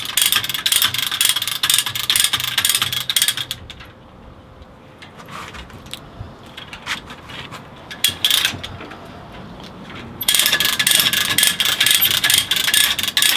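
Ratchet cable puller clicking as it is worked, drawing the wire through a solid rubber tire to pull it down onto a high-wheel bicycle rim. Two spells of rapid clicking, with scattered metallic clicks between them.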